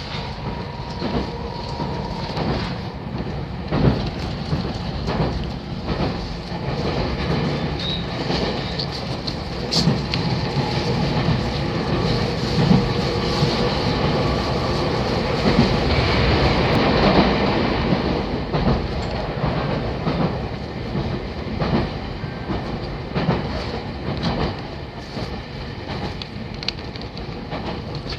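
JR 313-series electric train running along the track, heard from inside the carriage: a steady rumble with the clickety-clack of wheels over rail joints.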